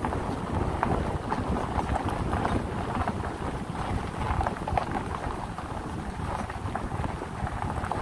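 Ford F-150 pickup rolling along a dirt forest road: wind rumbling on the microphone over tyre and engine noise, with small irregular crackles.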